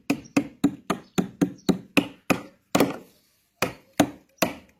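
Hammer tapping: about a dozen quick blows at roughly four a second, then slowing to a few spaced blows in the last two seconds.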